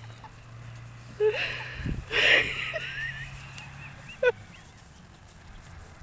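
A Labrador puppy and a turkey hen scuffling: a short animal call, then a thump and a brief noisy rustle about two seconds in, and one sharp short call about four seconds in.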